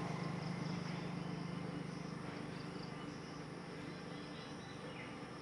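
Faint steady outdoor ambience: a low hum with insects chirring high above it.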